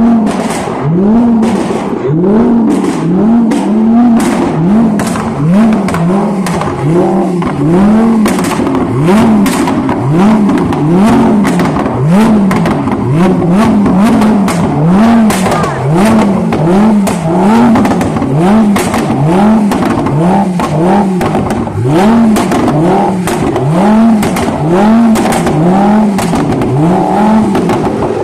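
Lamborghini engine revved over and over, about once a second, its pitch climbing and dropping each time, with sharp crackles throughout.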